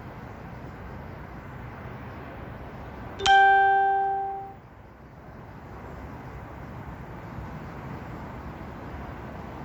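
A single loud ding-like tone that fades over about a second and then cuts off, over a steady background rumble.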